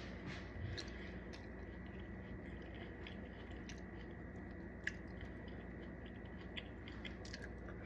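A person chewing food close to the microphone: faint, scattered wet mouth clicks over a steady background hum.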